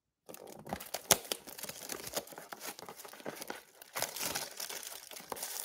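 Plastic shrink-wrap being torn and crinkled off a trading-card box: a run of crackles that starts suddenly a moment in, with one sharp snap about a second in.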